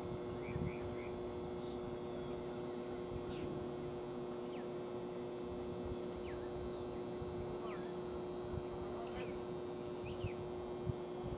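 Steady electrical hum under open-air background noise, with short high chirps scattered through, typical of small birds calling, and two faint knocks, one about half a second in and one near the end.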